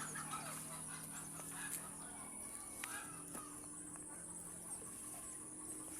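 Faint outdoor ambience: scattered short bird or fowl calls in the first few seconds over a steady low hum and a constant high whine, with a few light clicks.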